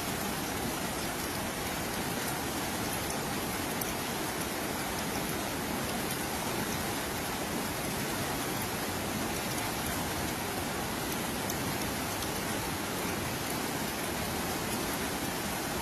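Heavy rain falling steadily: an even hiss of downpour, with scattered drop ticks.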